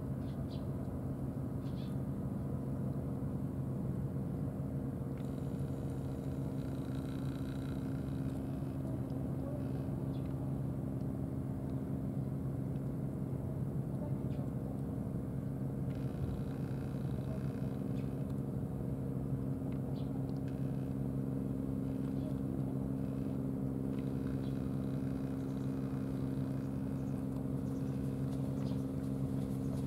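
Steady low drone of running machinery, holding a few fixed pitches and never changing, with faint ticks here and there.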